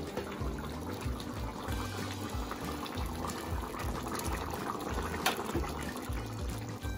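Thick jackfruit curry bubbling at a steady boil in a pan on the stove, with a single click about five seconds in.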